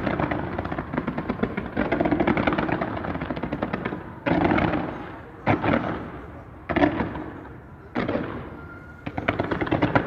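Fireworks going off in a dense, rapid run of bangs. About four seconds in this breaks into four separate volleys, each starting suddenly and fading over about a second, and the dense run picks up again near the end.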